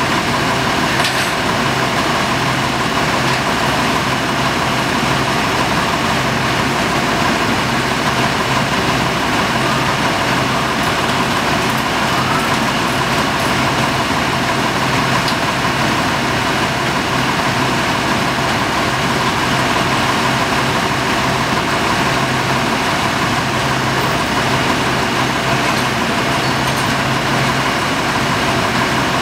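Heavy diesel truck engine idling steadily, a constant low hum with no change in speed.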